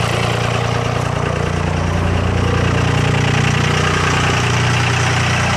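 5.9 L 24-valve Cummins diesel running steadily on its cold-weather three-cylinder high idle, a warm-up mode.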